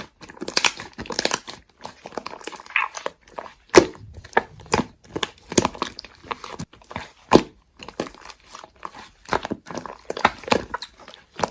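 Slime being worked by hand, making irregular crackly pops and squishes.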